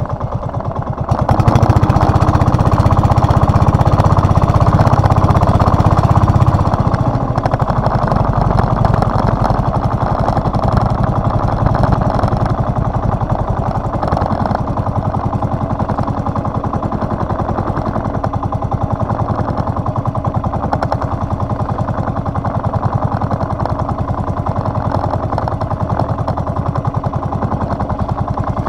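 Engine of a motorized outrigger fishing boat running with a rapid, even beat. It gets louder about a second in, as if throttled up, and eases back a little after about six and a half seconds, then runs steadily.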